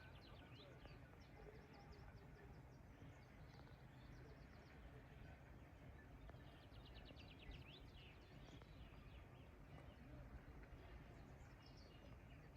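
Faint birdsong: scattered short chirps, with a rapid trill of repeated notes about six to seven seconds in, over a low steady rumble.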